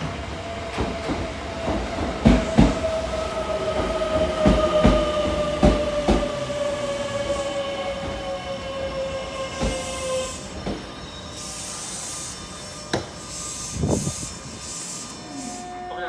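Kintetsu 23000 series Ise-Shima Liner braking into a station: the whine of its Mitsubishi GTO VVVF inverter falls steadily in pitch as the train slows, over wheels clacking across rail joints. Bursts of high hissing follow near the end as it comes to a stop.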